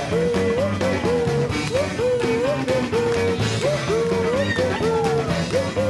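Background music: an electric-guitar lead line that keeps bending and sliding up in pitch, over a steady rock beat.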